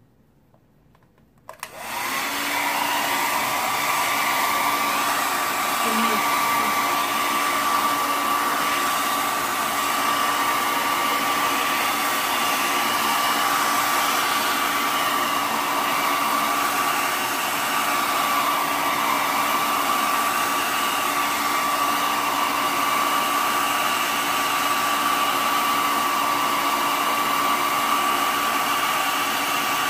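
Handheld hair dryer switching on about a second and a half in, then running steadily: a loud rush of air with a constant whine over it.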